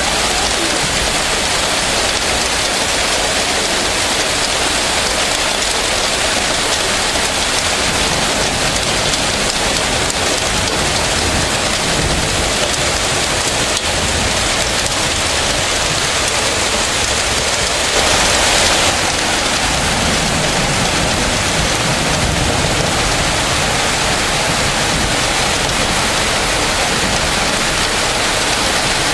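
Heavy rain pouring steadily onto trees and pavement, with a brief louder surge about eighteen seconds in.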